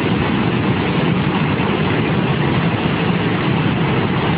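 Muddy flash-flood water rushing past in a steady, heavy torrent.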